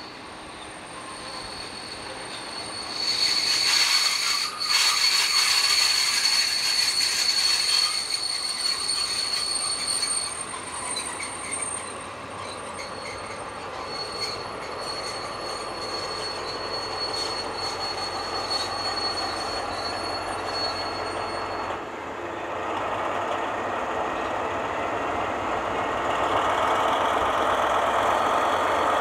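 Pair of DB class 218 diesel locomotives rolling slowly past at low speed, their wheels squealing on the track in a steady high tone. It is loudest as the locomotive passes, about three to eight seconds in, and the squeal fades out around two thirds of the way through. Near the end the locomotive's V12 diesel engine rises as a steady mechanical drone as it comes to a stand beside the platform.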